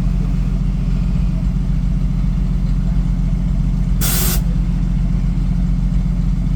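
A vehicle engine running steadily as a low drone, with a short burst of hiss about four seconds in.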